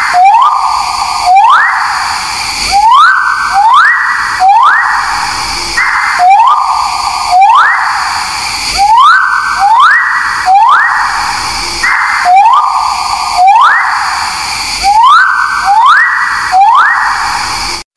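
Scimitar babbler (burung paruh sabit) calling: loud rising whistled notes, repeated about once every second and a bit, over a steady hiss. The sound cuts out for a moment near the end.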